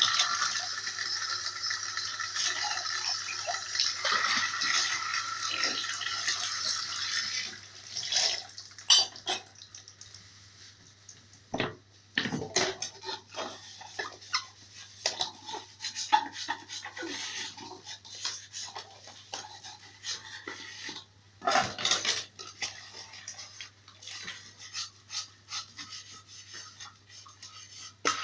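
Kitchen tap running into the sink while dishes are washed. About seven seconds in the water stops, and dishes and cutlery clink and knock as they are handled and set down.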